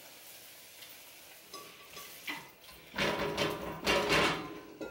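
Cookware clattering on a stovetop: a few light clicks, then about a second and a half of dense clattering as a wok and its glass lid are handled.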